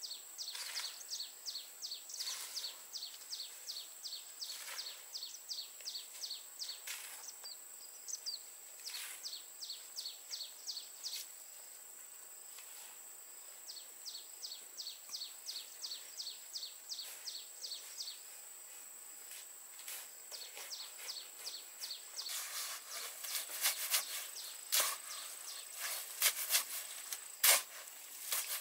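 Steel shovel scraping and turning a gritty dry cement-and-sand mix, with sparse strokes at first and a quick run of loud scrapes near the end. Behind it, a steady high insect drone and repeated trains of rapid high chirps, about five a second.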